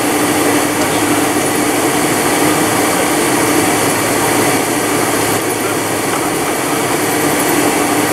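Boeing 747-400's jet engines running at taxi power, heard inside the cabin over the wing: a steady rush of noise with a constant low hum.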